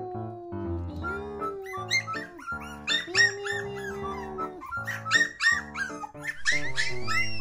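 Cheerful background music with a steady beat, over which a four-week-old Shiba Inu puppy howls and whines in long drawn-out cries, with a higher rising-and-falling cry near the end.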